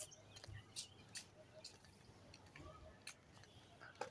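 Near silence: faint room tone with a few brief, faint clicks.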